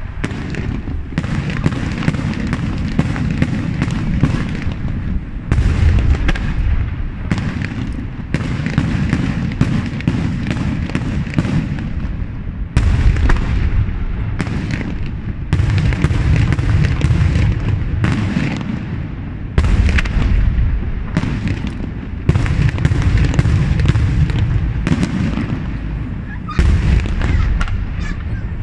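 Aerial firework shells bursting in a dense, nonstop barrage: sharp bangs follow one another many times a second, with heavier booms standing out every few seconds.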